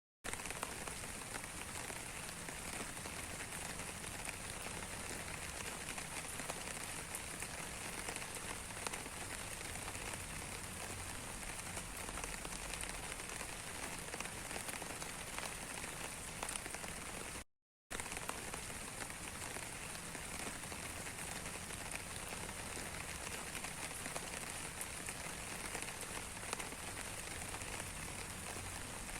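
Steady rain falling on a surface, an even hiss with many small drop ticks. The sound cuts out completely for under half a second about two-thirds of the way through, then resumes unchanged.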